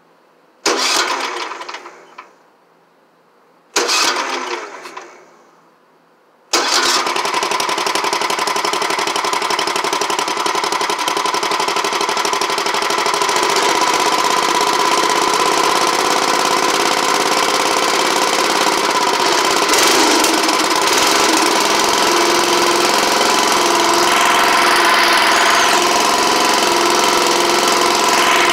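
Wheel Horse garden tractor engine being started: two short bursts of cranking that die away, then it catches about six and a half seconds in and runs steadily.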